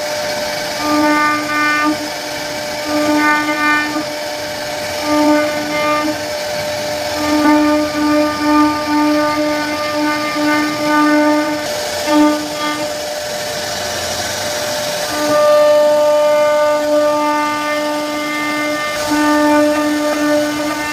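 CNC wood router's spindle whining at one steady pitch while its bit carves a relief pattern into a wooden panel, the whine breaking off and returning every second or so over a steady hiss of cutting.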